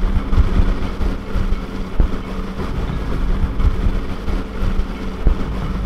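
Bass boat's outboard motor running at speed over choppy water, a steady engine drone with a low rumble. A few sharp thuds come through as the hull slams into the waves.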